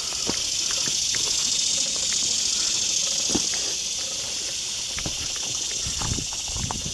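Steady high-pitched buzzing chorus of summer insects, with scattered light clicks and crunches that grow busier near the end.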